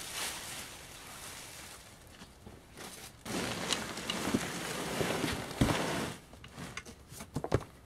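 Packaging being handled: a plastic bag rustling as it is pulled off, then stiff cardboard box flaps scraping and flapping, with several sharp knocks near the end.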